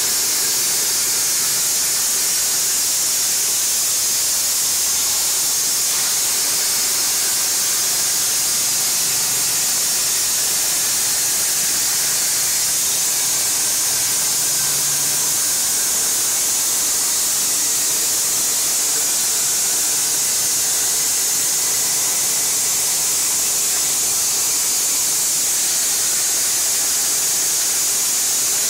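65 A plasma cutter's arc cutting through 8 mm plate: a steady hiss of the air-plasma jet that holds unbroken.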